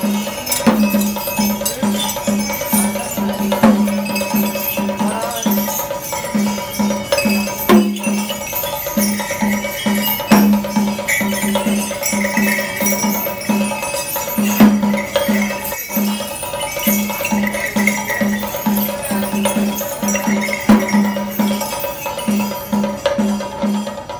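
Traditional temple percussion music: drums beating a steady rhythm of about two pulses a second, with metal cymbals or bells ringing steadily over them and occasional sharp strokes.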